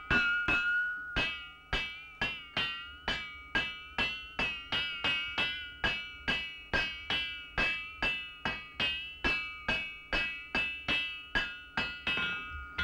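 Blacksmith's hand hammer striking the point of a steel tool on an anvil, a steady run of about three blows a second. Each blow rings brightly and fades before the next.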